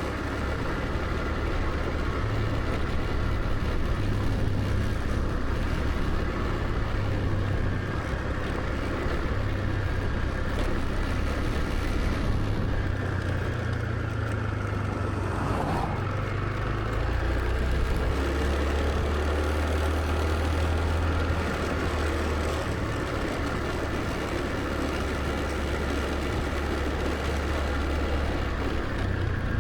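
Scooter running along the road: a steady low engine drone with road and wind noise. The low drone deepens a little about halfway through.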